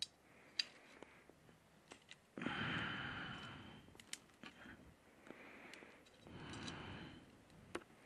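Faint, slow breathing right at the microphone, about three breaths, the loudest one about two and a half seconds in. A few sharp clicks and snaps are scattered between them.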